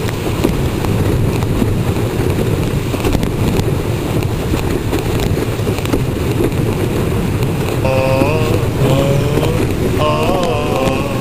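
Wind buffeting the microphone and water rushing along a windsurf board sailing fast through choppy water: a steady low rumble. Near the end a voice cuts through briefly, twice.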